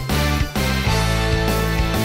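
Instrumental background music with a steady bass line and sustained chords.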